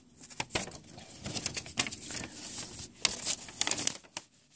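Handling noise: a hand and shirt sleeve rub and brush against the camera and its microphone, giving irregular rustling and clicks.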